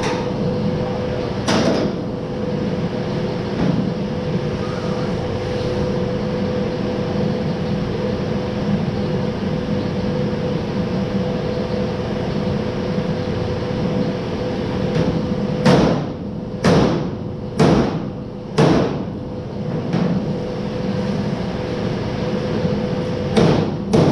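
Steady hum of a running shop machine, under sharp knocks on the bare steel car body: one early, a run of four about a second apart, and one more near the end.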